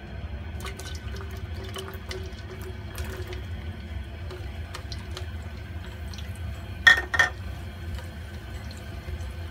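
Cashews frying in hot oil in a steel wok over low heat, with a steady gentle sizzle and bubbling. There are light clicks as wooden chopsticks stir them, and two sharp knocks of the chopsticks against the wok about seven seconds in.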